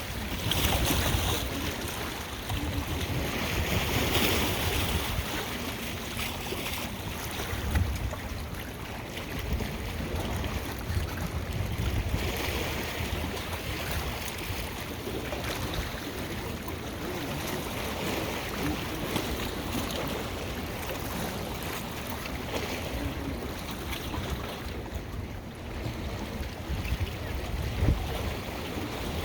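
Lake waves washing onto the shore, with wind gusting against the microphone in low rumbles.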